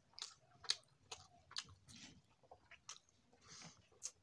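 A person eating rice and curry by hand: irregular wet chewing smacks and clicks.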